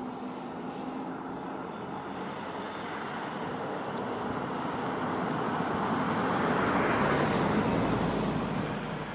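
Passing vehicle: a steady rushing engine-and-road noise that swells to a peak near the end and then begins to fade.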